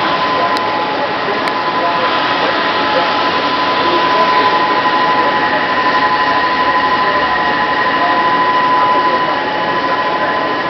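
Outdoor tsunami warning sirens sounding a steady, unwavering tone over a constant rush of background noise, the loudness swelling slowly and easing off near the end.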